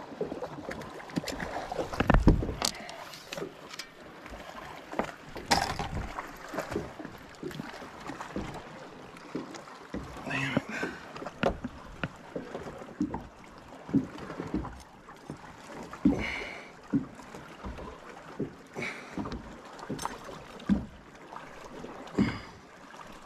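Scattered clicks and knocks of fishing tackle being handled on a bass boat's deck, from pliers, rod and lure, with a heavy thump about two seconds in.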